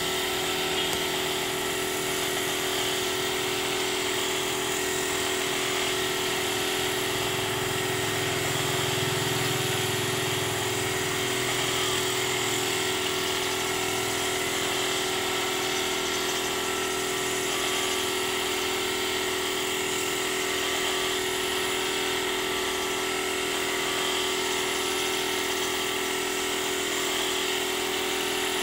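Air-fed gravity spray gun hissing steadily as it sprays paint, over the steady hum of the air compressor that feeds it.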